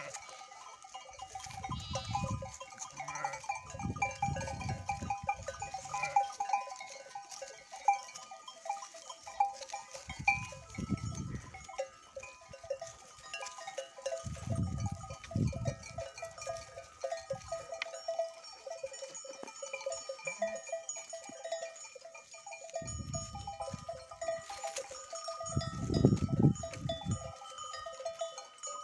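Livestock bells on a browsing flock of goats and sheep, clinking and ringing with many overlapping tones. Several short bursts of low rumble break in about one, four, ten, fifteen and twenty-three to twenty-six seconds in.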